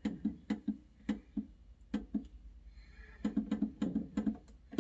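Digital control panel of an electric oven, its temperature-down key pressed over and over to step the set temperature down to 350 °F, each press giving a short beep. There is a run of presses, a brief pause, then a quicker burst of presses near the end.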